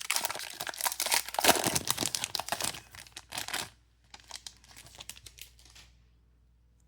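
Foil trading-card booster pack wrapper crinkling and being torn open, loud for the first few seconds, then quieter rustling that stops about six seconds in.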